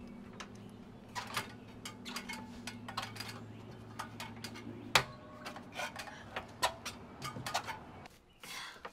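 Irregular light clicks and knocks over a steady low hum; the hum stops about eight seconds in.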